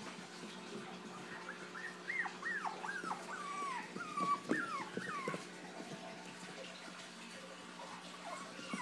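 Bichon Frise puppy whimpering: a string of short, high whines that dip in pitch, mostly in the first half, with a few more near the end.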